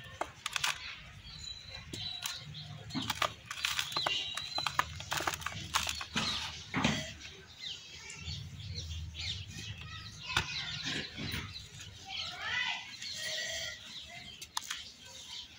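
Hands crushing dry, pressed yellow soil lumps and sifting the loose powder through the fingers into a plastic basin: many irregular gritty crunches and crackles over a soft trickling hiss. A pitched call sounds faintly in the background near the end.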